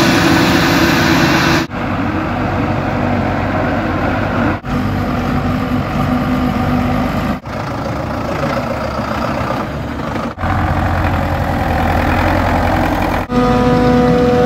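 Engines of silage-harvest machinery, a Claas Jaguar forage harvester and farm tractors, running. The sound cuts abruptly from one machine to the next about every three seconds, and the last one carries a steady hum.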